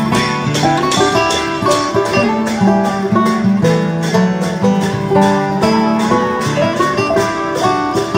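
Sakela dance music: a plucked-string melody over a steady beat of sharp, evenly spaced strikes.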